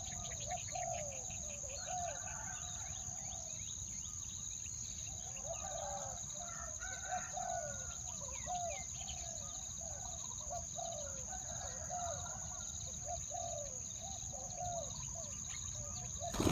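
Birds calling: a long run of short, low, falling notes, two or three a second, over a steady high-pitched insect drone.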